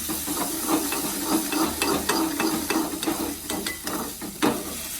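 Grated ginger frying in ghee in a kadhai, sizzling steadily while it is stirred in short, irregular scraping strokes, with a sharper knock against the pan near the end.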